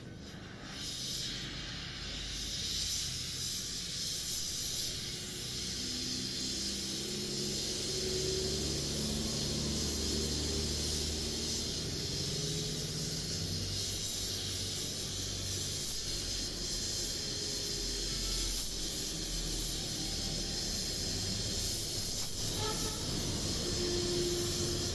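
Gas welding torch flame hissing steadily while brazing brass, building up over the first couple of seconds and then holding even.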